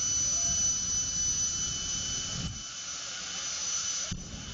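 Jet engine of a jet-powered pickup truck running with a steady high whine. A deep rumble under it drops away about two and a half seconds in and comes back near the end.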